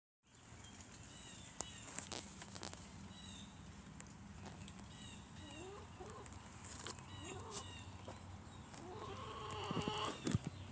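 Chickens calling softly, with short high chirps and a few low rising clucks that get busier near the end. Scattered knocks and rustles come from the wooden coop and its wood-shaving bedding.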